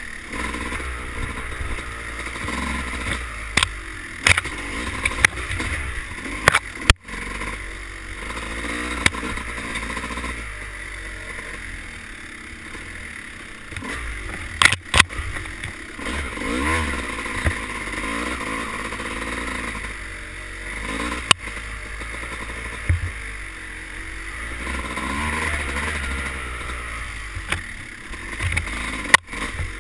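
Dirt bike engine revving up and down as the rider works the throttle along a tight wooded trail, heard from the rider's helmet. Several sharp knocks break in now and then.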